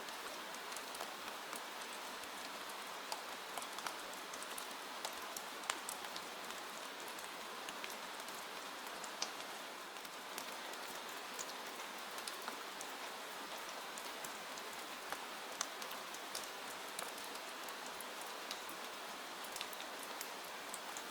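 Steady rain falling, a constant even hiss with many scattered sharp ticks of single drops hitting a surface.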